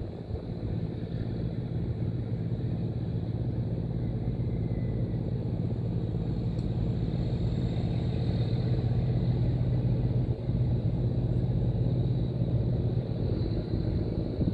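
Small boat engine running steadily, a low even hum that holds one pitch throughout.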